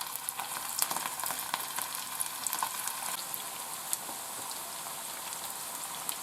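Meatballs frying in hot vegetable oil in a frying pan: a steady sizzle with many small crackles, busier in the first few seconds.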